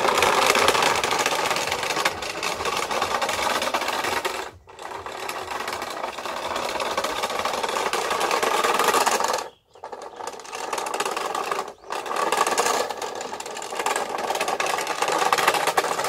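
Barbie remote-control convertible's small electric motor and plastic wheels running over rough outdoor concrete, a steady whirring noise that cuts out briefly three times as the car stops and starts.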